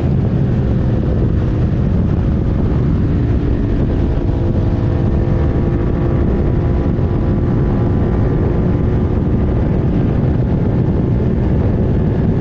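Suzuki SV650's V-twin engine running at a near-steady pitch while riding, under a loud, steady low rumble.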